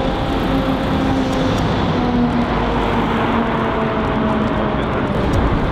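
Steady vehicle noise: an even, dense noise with a few faint held tones that shift slowly in pitch.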